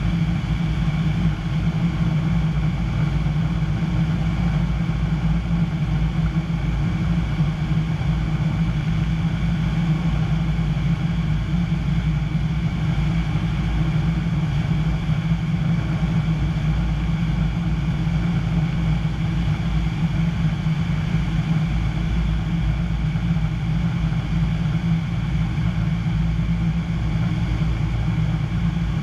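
Piper PA-25-235 Pawnee's Lycoming O-540 six-cylinder piston engine and propeller droning steadily in flight, heard from inside the cockpit.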